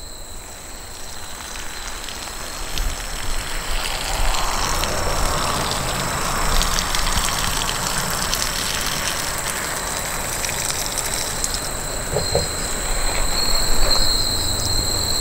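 Insects droning steadily at a high pitch. Under them a broad rushing rumble builds over the first few seconds and then holds.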